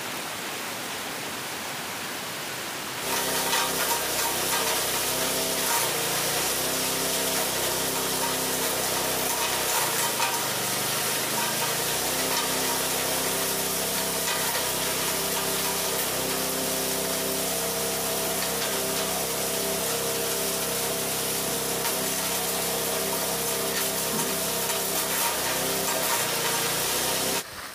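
Heavy rain falling for the first three seconds, then a small corn grinding mill running steadily as shelled corn is poured in and ground, its hum dipping in pitch a couple of times under the load.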